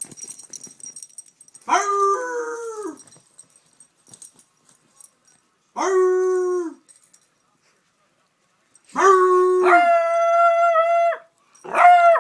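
Young beagle baying: four drawn-out howling calls with gaps between, the third held longest and jumping to a higher pitch partway through.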